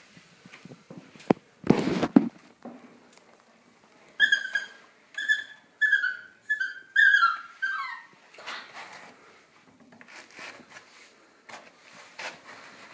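Cockapoo puppy whining: about six short, high-pitched whimpers in a row, the last sliding down in pitch.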